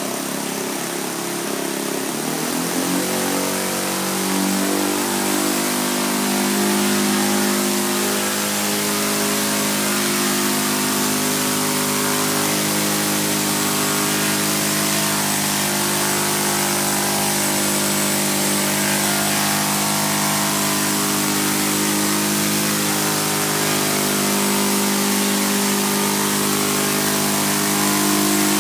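Hybrid helicopter's Saito FG-20 single-cylinder four-stroke gasoline engine turning a large propeller, together with four electric-motor rotors, rising in pitch and loudness over the first few seconds as it lifts off. It then holds a steady pitched drone while hovering.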